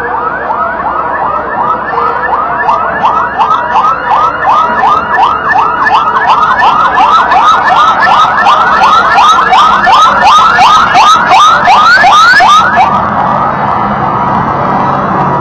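Fire engine's electronic siren on a fast yelp: rising sweeps about three a second, getting louder as the truck approaches. The siren cuts off suddenly about thirteen seconds in, leaving a steadier tone and the truck's engine.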